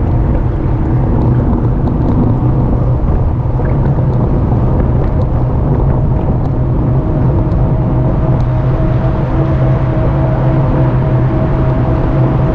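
Steady wind and road rumble from a moving e-bike, with a constant motor hum; a higher hum tone comes in about halfway through.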